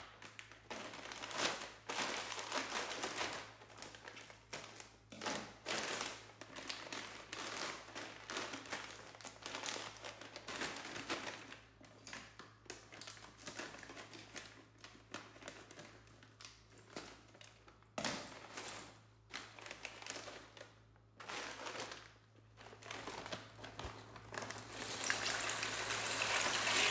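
Crinkling of a plastic pasta packet as it is handled and cut open with kitchen scissors, in irregular rustles, with one sharp click about two-thirds of the way through. Near the end a louder steady hiss comes in.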